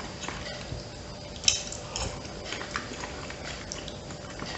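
Metal fork clinking and scraping on a ceramic plate while picking up sauced rigatoni, with chewing. One sharp clink about one and a half seconds in is the loudest sound.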